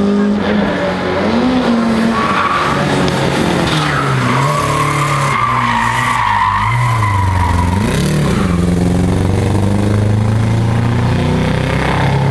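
Rally car taking a bend on dry tarmac, its engine revving hard with the pitch dipping and climbing again several times, and the tyres squealing for a few seconds in the middle of the pass.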